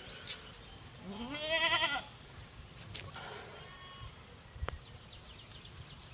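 A single bleat, about a second long, rising in pitch and then wavering, with a fainter shorter call a couple of seconds later.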